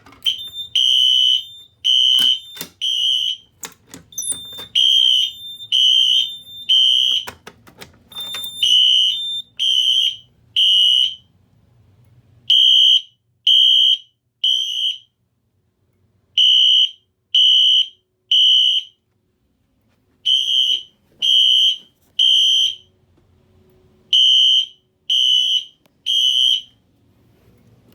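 Wheelock fire alarm horn sounding the temporal-3 evacuation code after a manual pull station is pulled: three half-second beeps, a pause, and again, about seven rounds. A few clicks and knocks sound in the first eight seconds.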